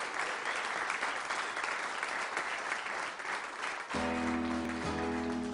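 Audience applauding, cut off abruptly about four seconds in by a band starting a song with ringing guitar chords.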